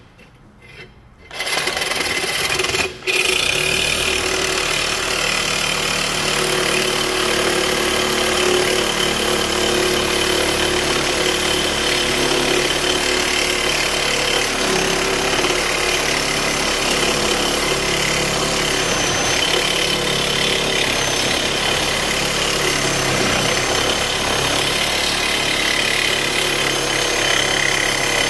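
Cordless reciprocating saw cutting through the rusted steel inlet pipe of a catalytic converter, running steadily. It starts about a second in and stops briefly once shortly after.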